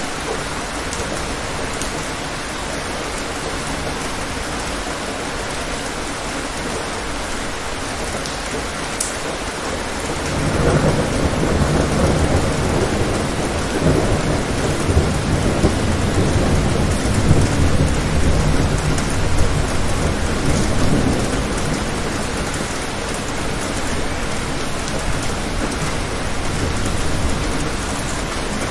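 Steady rain with a long roll of thunder that swells in about a third of the way through, rumbles for roughly ten seconds, and fades back under the rain.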